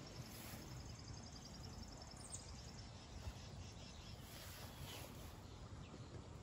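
Quiet outdoor background: a faint steady insect trill and a few short bird chirps over a low background rumble.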